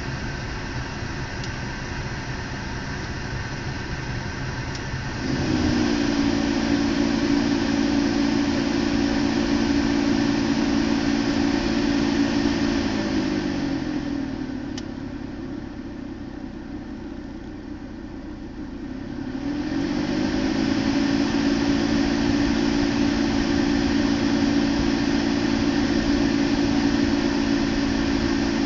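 Air conditioning of a 2012 BMW 328i making an abnormal loud droning hum, which the owner likens to a motorcycle at full speed. The hum cuts in about five seconds in, winds down in pitch and dies away around the middle, then winds back up and runs steadily over a background whoosh.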